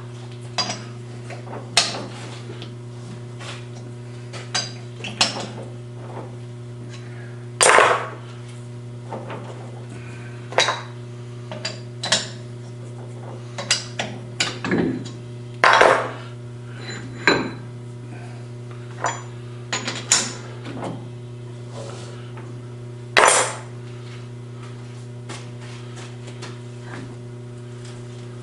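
Irregular metallic clanks and knocks as a steel bar is handled and set in a lathe's four-jaw chuck, the loudest about 8, 16, 20 and 23 seconds in. A steady low hum runs underneath.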